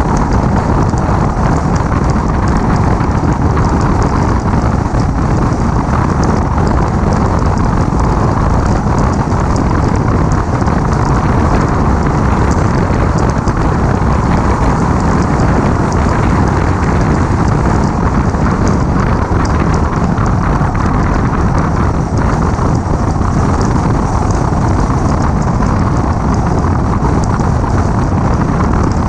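Steady rush of wind over a car-mounted camera's microphone as a 2006 Mini Cooper S drives along at speed, with the car's engine and tyre noise underneath.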